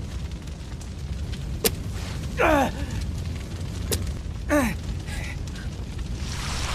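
Film sound effects: a steady low rumble under two sharp cracks and two short cries that fall in pitch.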